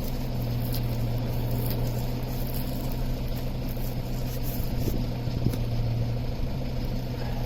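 Steady low mechanical hum of a running motor, with a constant background noise and a few faint ticks.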